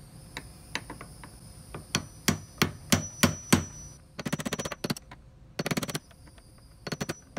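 A brass punch tapping the plastic lock ring of a fuel pump on a plastic fuel tank, driving the ring around to lock it. First come single sharp taps spaced a fraction of a second apart, then fast rattling runs of taps from about four seconds in.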